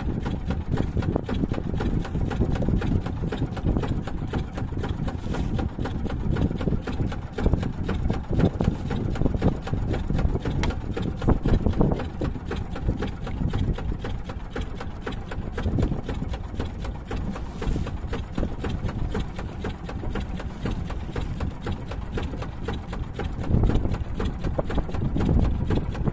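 Small fishing boat's engine running steadily with a rapid, even chugging beat while the boat trolls under way.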